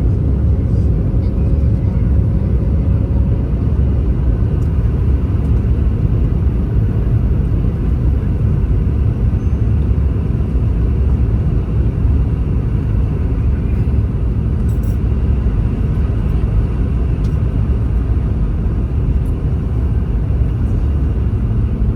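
Steady cabin noise inside a Boeing 717 airliner descending to land: the rush of air past the fuselage and the hum of its two rear-mounted Rolls-Royce BR715 turbofans, heaviest in the low rumble and unchanging throughout.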